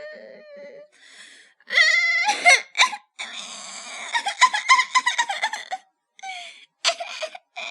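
A baby laughing: a couple of high squeals, then a long run of quick giggles, then short squeals near the end.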